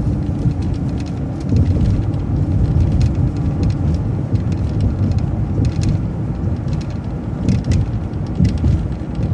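MCO ViewMaster transit bus driving along the road: a steady engine and road rumble with occasional light rattles and clicks.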